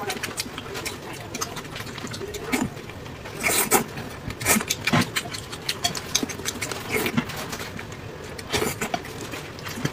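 Close-up mouth sounds of eating soft, fatty pork: wet chewing, lip smacking and slurping, heard as irregular clicks and smacks, loudest from about three and a half to five seconds in and again around seven seconds.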